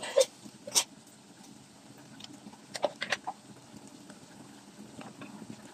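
Chicken adobo simmering in its soy-sauce liquid in a pot, bubbling steadily with a few sharp pops and plops. Two loud ones come near the start, a cluster about three seconds in, and fainter ones near the end.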